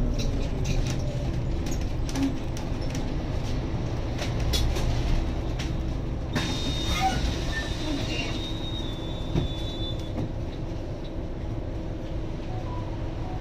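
Scania N280UD bus's compressed-biogas engine running at low revs while the bus pulls up and stands at a stop, heard inside the lower deck, with rattles and clicks from the bodywork. About six seconds in a sudden hiss starts, with a thin high tone over it for a few seconds.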